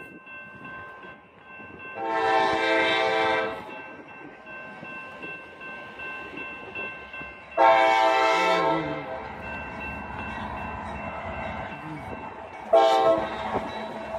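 CSX freight train's diesel locomotive sounding its air horn: two long blasts and then a short one, the start of the long-long-short-long grade-crossing signal. The rumble of the approaching train grows over the last few seconds.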